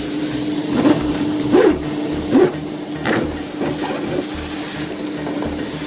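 Duct-cleaning machine running: a steady hum over a rushing hiss, with a few short squeaks in the first four seconds.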